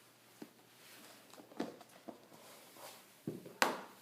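Light handling noise of an iPad Air being lifted out of its box: soft rustles and small taps, with two sharper knocks a little after three seconds in.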